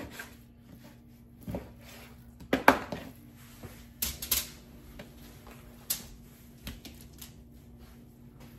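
Irregular knocks and clicks of food prep: a knife cutting raw chicken breast against a plastic cutting board, then the knife set down and chicken pieces laid onto a foil-lined sheet pan. The loudest knock comes about two and a half seconds in.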